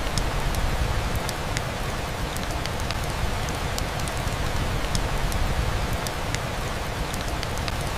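Soft steady rain with scattered drop ticks, layered over a deep, even brown-noise rumble.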